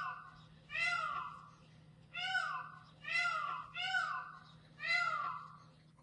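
Peacock calling: a series of about six loud, high screams, roughly one a second, each falling in pitch.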